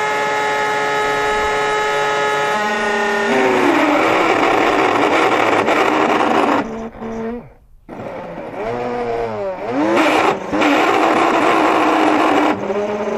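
Old Shop-Vac wet/dry vacuum motor screaming with a loud whine, its pitch sweeping up and down several times and the sound nearly cutting out for a moment about halfway through. The owner puts the screaming down to the motor bearings going out; the motor is also smoking.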